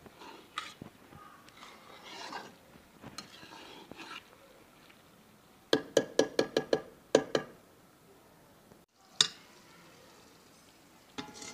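Metal spatula stirring and scraping potato and eggplant in a steel kadhai, then a quick run of ringing metal clanks as the spatula knocks against the pan about six seconds in. Near the end a steel lid clanks onto the pan.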